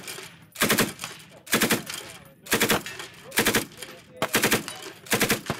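Belt-fed machine gun firing on full auto in six short bursts of a few rounds each, about one burst a second.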